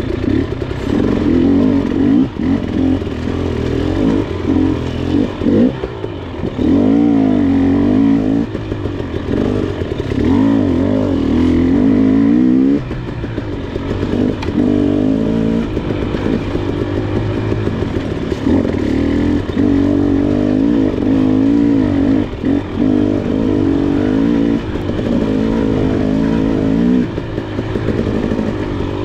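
KTM 300 XC two-stroke dirt bike engine being ridden through technical terrain, its revs rising and falling over and over in short bursts of throttle, with brief let-offs now and then.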